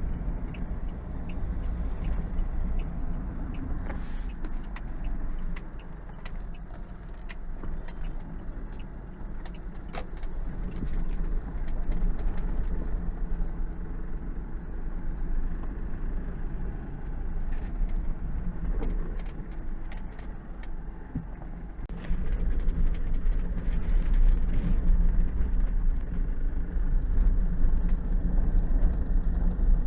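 Car moving along a road: a steady low engine and road rumble with scattered small clicks and rattles, getting louder about two-thirds of the way through.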